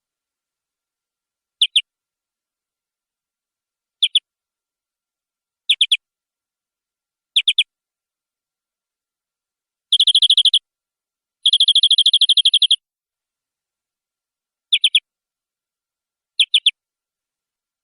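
Domestic canary singing: short bursts of a few rapid notes every couple of seconds, then two longer fast trills about halfway through, the second lasting over a second. There is dead silence between phrases.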